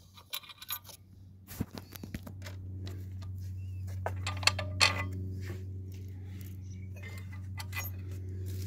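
Steel spring washers and nuts clinking together as they are handled and fitted onto a gate motor's mounting bolts, in a string of irregular sharp clicks. A steady low hum builds up behind them after about a second and a half.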